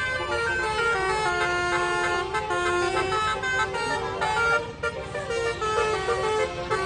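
Bus telolet horn playing a melody of quick, stepped notes, with a low rumble underneath. It breaks off briefly a little past two-thirds of the way in.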